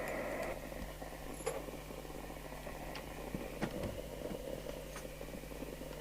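Faint scattered clicks and light scrapes from gear being handled on a workbench, over a steady low mains hum and faint hiss.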